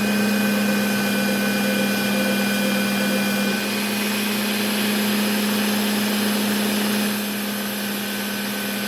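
Work Sharp Ken Onion Edition belt sharpener running steadily, its motor humming while the Trizact A30 abrasive belt grinds the edge of a small whittling knife with a continuous hiss. It gets slightly quieter about seven seconds in.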